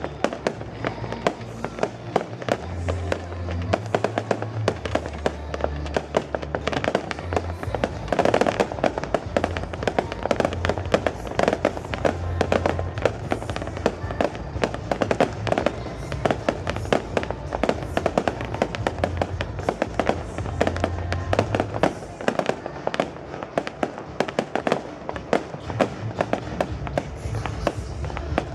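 A fireworks display going off in rapid succession, with dense crackling and bangs throughout. Under it plays music with sustained bass notes.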